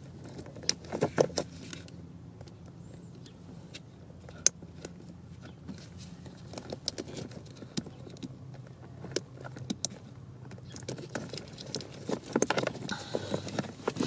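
Light, irregular clicking and rattling of a plastic wiring-harness connector and its loose wires, handled while a terminal pin is pried out with a small pick. The clicks come in scattered clusters, loudest about a second in and again near the end.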